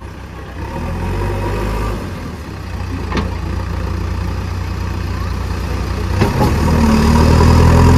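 Heavy diesel engine running while pulling a truck stuck in mud: steady at first, then revving harder under load from about six seconds in and loudest near the end.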